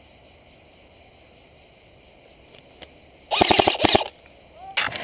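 A short full-auto burst from an airsoft electric rifle, about seven rapid shots in under a second, about three seconds in, then another short sharp sound near the end. Insects chirp steadily underneath.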